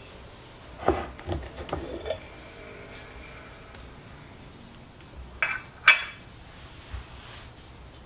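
Spatula knocking and scraping against the rim of a metal cake pan while smoothing thick cheesecake filling: a quick run of knocks about a second in, then two sharper clinks a little past the middle.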